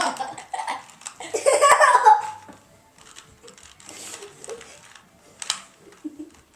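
People laughing, loud in the first two seconds and then dying down to quieter sounds, with one sharp click about five and a half seconds in.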